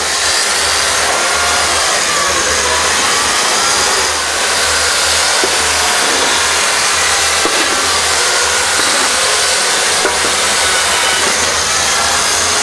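Chainsaw cutting into a block of ice, running at high revs, its pitch wavering up and down over a dense hiss.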